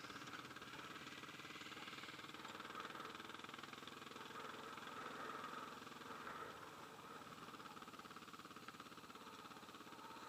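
Motorcycle engine running steadily while riding, heard from a helmet-mounted camera, swelling slightly about halfway through.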